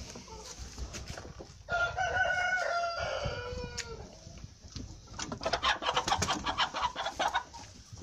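A rooster crows once, a call of about two seconds that falls in pitch at the end. After a short pause comes a run of fast, repeated chicken clucking.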